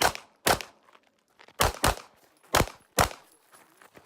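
CZ Shadow 2 9mm pistol firing six rapid shots in pairs: two, a short pause, two close together, then two more.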